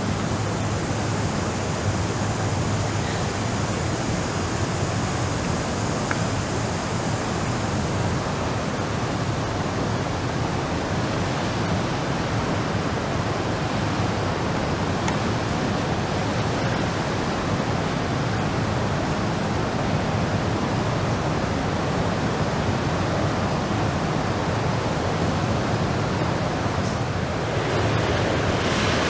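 Steady rush of the Niagara River's rapids heard from the gorge trail, a dense, even roar of white water that grows a little louder near the end.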